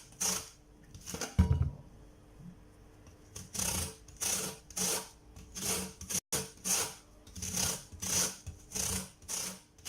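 Lemon peel being grated on a hand grater to take off the yellow zest: repeated rasping strokes, about two to three a second, starting about three and a half seconds in after a single low knock.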